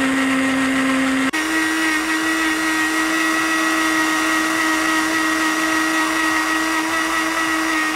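Countertop blender running, puréeing sautéed tomatoes, onion and garlic with a little water into salsa: a steady motor whine whose pitch steps up slightly a little over a second in.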